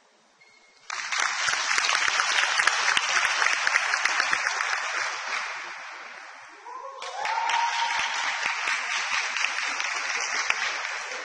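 A seated group clapping in applause, twice: a round that starts suddenly about a second in and fades away after about five seconds, then a second round starting about seven seconds in, opened by a brief cheer.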